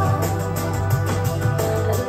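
Music played back from a cassette tape on an Aiwa AD-F990 deck: sustained keyboard-like notes over a bass line, with a steady beat.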